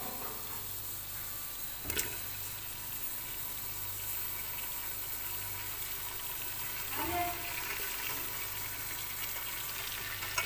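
Sliced onions frying in hot oil in a metal pan: a steady sizzle, with a single sharp knock about two seconds in.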